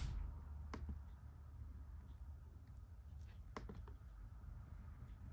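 A few faint, scattered clicks from the trackpad of a late 2009 white MacBook as it is clicked to work the Apple menu, over a low steady hum.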